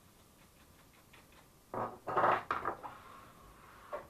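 Coffee machine parts being handled: a short burst of knocks and scrapes about halfway through, then a single click near the end, over faint regular ticking.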